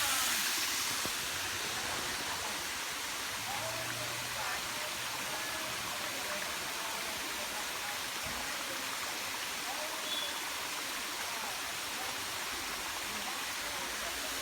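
Waterfall pouring steadily, an even rushing of falling water.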